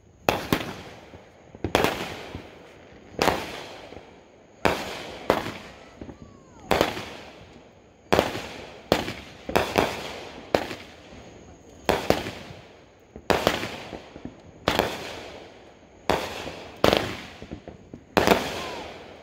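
Aerial fireworks bursting overhead, one sharp bang after another about every second, each trailing off before the next.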